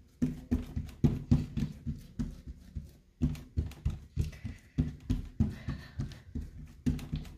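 Oiled palms patting and pressing paratha dough flat against a countertop to stretch it by hand: a quick run of soft slaps, about four a second, with a short break about three seconds in.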